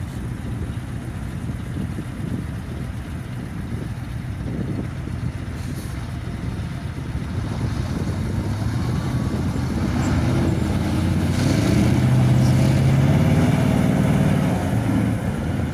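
KamAZ truck with a loaded trailer driving over snow, its diesel engine a steady low rumble that grows louder and clearer under load from about ten seconds in, then eases off near the end.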